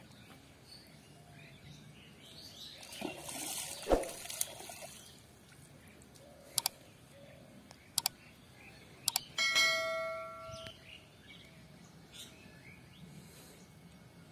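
Subscribe-button pop-up sound effects: a swoosh with a knock about four seconds in, then a few sharp mouse clicks, and a notification-bell chime ringing for about a second near ten seconds. Faint outdoor background underneath.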